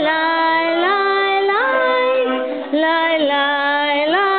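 A female voice singing a slow melody in long held notes that slide up from one pitch to the next, with a short break for breath about two and a half seconds in.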